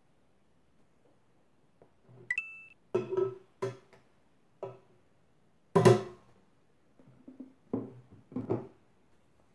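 A table knife knocking and scraping against the rim of a metal bread machine pan about six times, knocking off a soft white ingredient, with the metal ringing briefly after each knock; the loudest knock comes near the six-second mark. A short high beep sounds about two seconds in.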